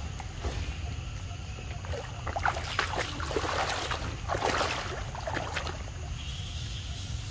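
Shallow floodwater sloshing and splashing in an irregular run of bursts between about two and six seconds in, over a steady low rumble.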